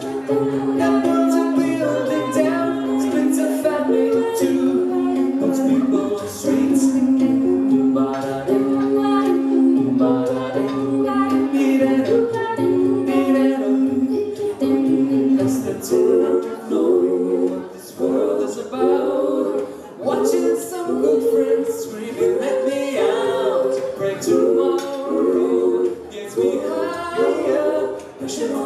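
Mixed six-voice a cappella group singing live through handheld microphones and a PA, in close harmony. Long held chords give way about halfway through to shorter, more rhythmic phrases.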